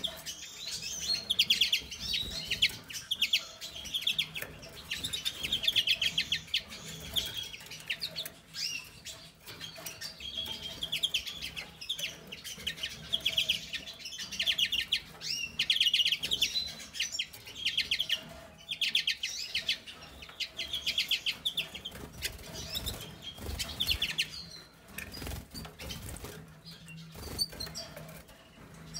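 Small caged finches twittering: high, rapidly trilled call bouts repeated every second or two, with occasional wing flutters and light clicks.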